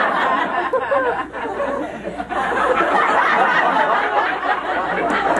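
Audience laughing hard.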